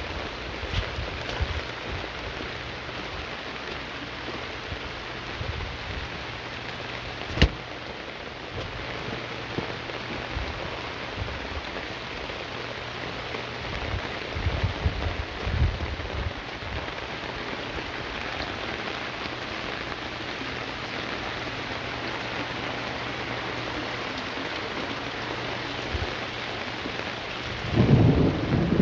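Heavy rain falling steadily, a dense even hiss, with a single sharp click about seven seconds in and a low rumble near the end.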